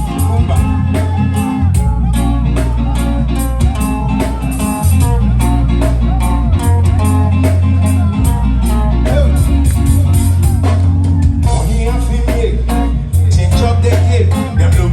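Loud reggae music with a heavy, steady bass line, a drum beat and a singing voice.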